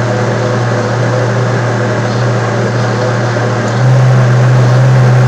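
Countertop blender motor running steadily, blending a quinoa and chia-seed batter. About four seconds in, as the speed dial is turned up, the motor gets louder and slightly higher.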